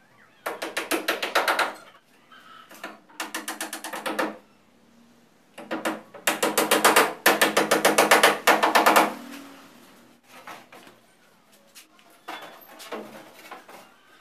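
Handheld power drill working into the wooden cage frame in three bursts of rapid, even clicking, the last and longest lasting about three seconds, followed by a few quieter knocks on the wood.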